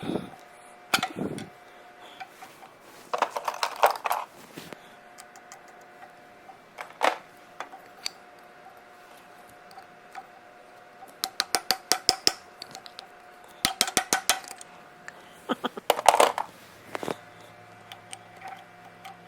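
Metal parts of a Chicago Rivet machine clinking and rattling as they are worked loose by hand, in several bursts of quick clicks and clatters, over a faint steady hum.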